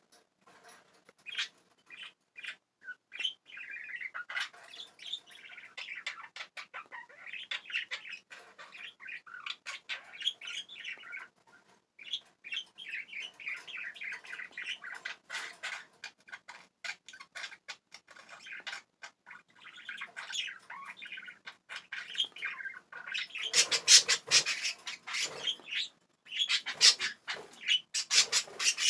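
Pet budgies chattering and warbling steadily, with many short clicks mixed in. The sound turns louder and harsher in the last few seconds.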